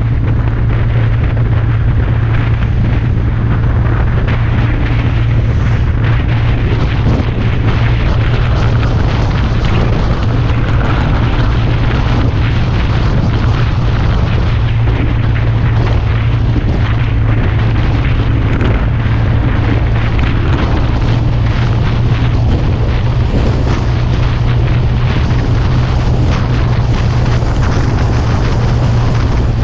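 Scooter riding at a steady cruising speed: wind rushing over the handlebar-mounted camera over a steady low engine drone, loud and unbroken throughout.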